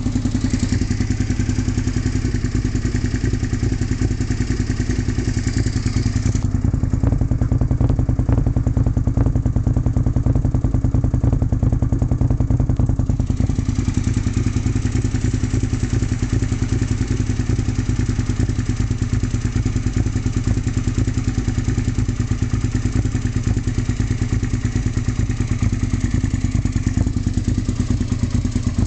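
2002 Suzuki SV650S V-twin engine idling through a full M4 exhaust, sputtering off beat: a rough idle.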